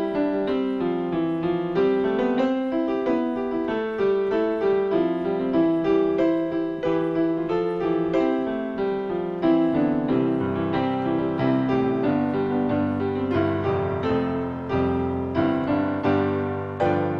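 Piano playing a hymn introduction in a steady run of struck chords, with a low bass line joining about ten seconds in.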